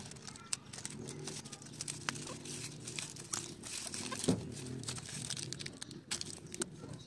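Aluminium foil tape crinkling, and its paper backing rustling as it is peeled off, while the foil is pressed down by hand: quick, irregular crackles.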